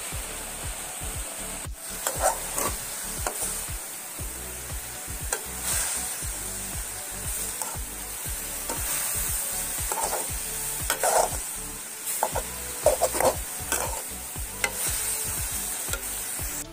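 Radish leaves sizzling as they are stir-fried without oil in a kadai. A steel spoon scrapes and tosses them against the pan in short clattering strokes every few seconds.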